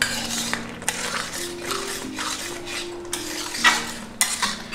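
Flat metal spatula scraping and stirring a thick, grainy milk-and-mango mixture around a heavy iron kadhai, in repeated strokes about two or three a second. The mixture has cooked down thick, the late stage of making kalakand.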